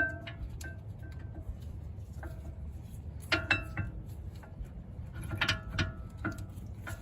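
Metal brake parts clinking and ringing briefly as the caliper and new pads are worked into line, in two clusters of sharp taps about three and five and a half seconds in. A low steady hum runs underneath.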